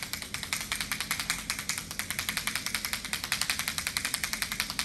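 Handheld sound-trigger device held against a horse's body, giving a rapid, even run of sharp clicking taps, about ten a second.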